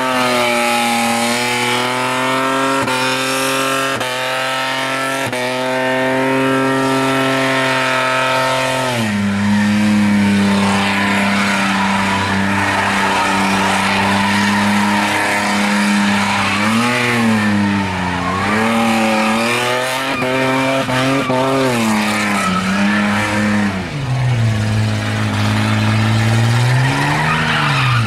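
Holden Commodore wagon's engine held at high revs during a burnout, rear tyres spinning and squealing on the bitumen with a hiss. About nine seconds in the revs drop to a lower steady note, and in the second half they rise and fall again and again.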